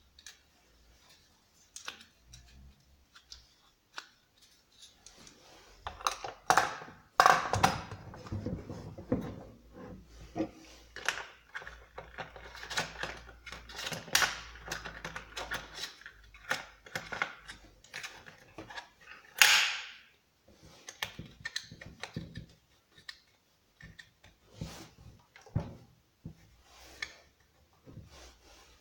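Irregular clicks, knocks and rattles of chainsaw parts and tools being handled during assembly of a Husqvarna 455 Rancher, with a short rasping scrape about two-thirds of the way in.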